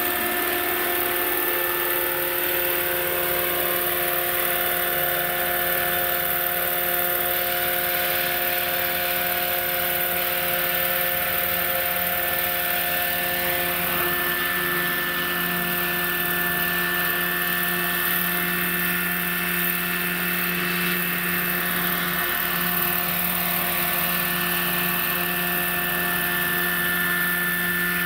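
Electric RC scale model helicopter (Bo 105, driven by a Hacker 12S electric motor) flying and hovering low: a steady high whine from the motor and gearing over the whir of the main and tail rotors.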